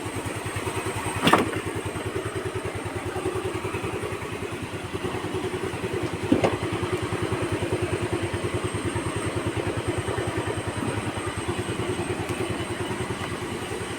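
Yamaha Ray ZR scooter's small single-cylinder engine running steadily, with two short sharp knocks, one about a second in and another about six seconds in.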